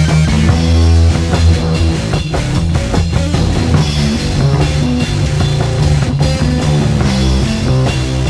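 Late-1970s rock recording: drum kit and electric guitar playing over a heavy, moving bass line.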